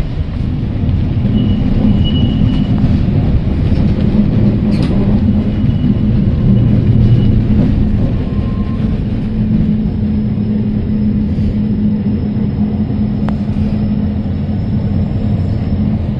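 Heritage electric tram running along the line, heard from inside the car: a steady rumble of wheels on rail with a constant hum, a little louder in the first half.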